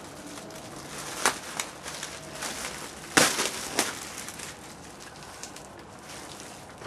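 Plastic packaging rustling and crinkling as gear is unwrapped and handled, with a few sharp clicks or snaps, the loudest about three seconds in.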